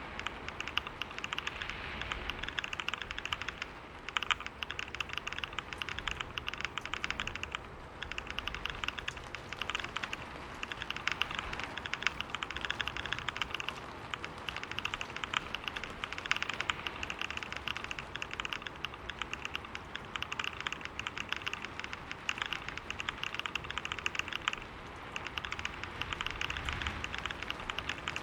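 Fast, continuous typing on a computer keyboard, a dense stream of key clicks at about 125 words per minute, broken off briefly three times.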